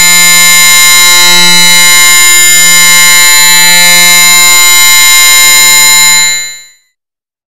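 Loud, harsh electronic buzzing drone: a dense stack of steady tones from a logo sound effect that has been layered and distorted many times over. It holds level, then dies away quickly about six and a half seconds in.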